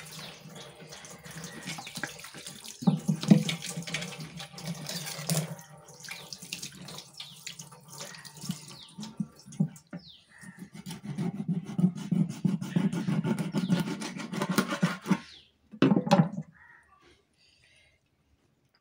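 Tap water running into a kitchen sink, splashing unevenly with small knocks as fish pieces are washed under it. It stops a little before the end, after one last short splash.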